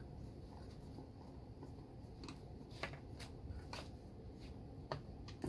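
Hand screwdriver working small bolts on a car stereo unit's mounting hardware: faint scraping and handling, with several sharp metal clicks between about two and five seconds in.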